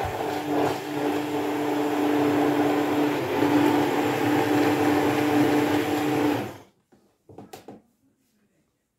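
Handheld immersion blender running steadily in a bowl of liquid batter (eggs, sugar and milk), its motor holding one steady hum. It switches off about six and a half seconds in, and a brief faint knock follows.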